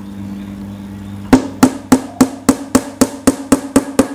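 Hammer striking the wooden panels of a mixer box: a fast, even run of blows, about four a second, starting a little over a second in, each with a short ring.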